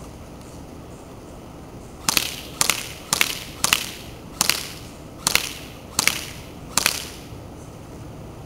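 Classic Army MP5A2 airsoft electric gun (AEG) firing eight single shots, about half a second to under a second apart, each a sharp snap.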